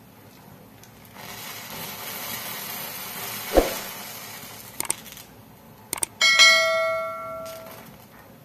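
Subscribe-button animation sound effects: a swoosh with a short thump, a few sharp mouse clicks, then a bright bell ding that rings out and fades over about a second and a half.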